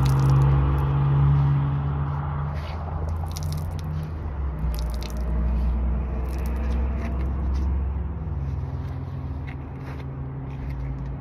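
Sweat being wrung out of a sauna suit, dripping and spattering onto asphalt in short scattered ticks, over a steady low engine hum whose pitch shifts a couple of times.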